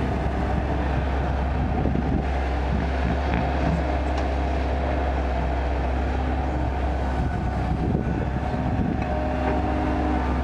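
Kobelco excavator's diesel engine running steadily with a deep, even hum.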